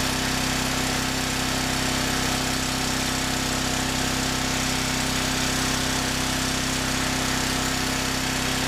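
Briggs & Stratton portable generator running steadily, its exhaust fed through a flex pipe into a car muffler. The low exhaust sound is greatly reduced, so most of the racket left is higher-pitched valve clatter from the engine and a whir and whine from the generator itself.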